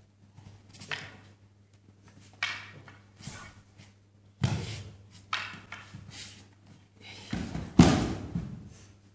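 Sudden knocks and thuds from an aikido sword exchange with wooden bokken, and a body slapping down onto the mats in a breakfall. The heaviest thuds come about four and a half seconds in and again near the end, the last the loudest.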